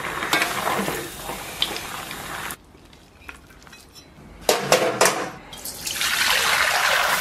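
A ladle stirring a large steel pot of stewed mutton chunks and potatoes. After a quieter stretch and a few sharp metal clinks, water pours from a bowl into a wok and splashes steadily from about six seconds in.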